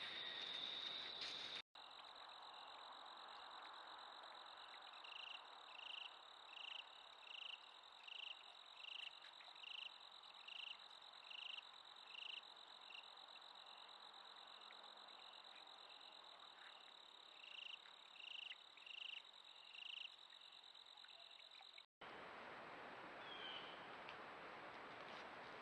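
Faint outdoor chorus of calling insects: a steady high-pitched trill. Over it comes a short repeated chirp about once a second, in two runs, the first of about ten notes and the second of about four. The sound breaks off abruptly twice where trail-camera clips are joined.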